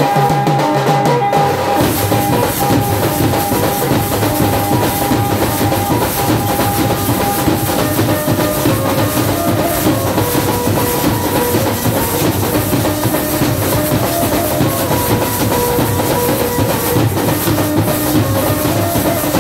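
A tasa party drum band plays a fast, dense rhythm, many drummers striking tasha and bass drums with sticks. Held melody tones sound over the drumming.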